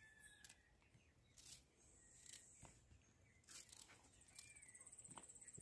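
Near silence: faint outdoor background with a few soft clicks and faint high chirps.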